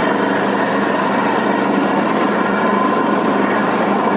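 Borewell drilling rig running with a steady, unbroken machine noise.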